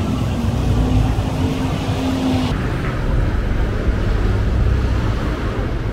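Steady low rumble of street traffic, with a vehicle engine's hum over it for the first half that stops about two and a half seconds in.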